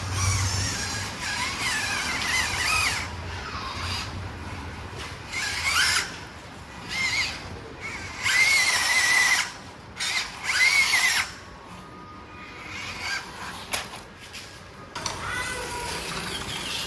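Micro-scale RC crawlers' electric motors and gearboxes whining in repeated bursts as the throttle is worked on and off, the pitch rising and falling with motor speed.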